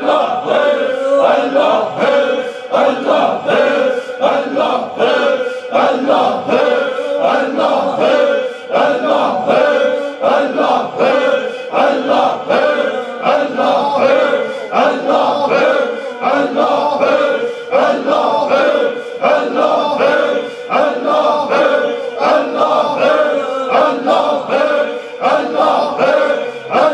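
A group of men chanting Sufi dhikr together in unison, a steady, rhythmic, pulsing repetition of the same phrase by many voices.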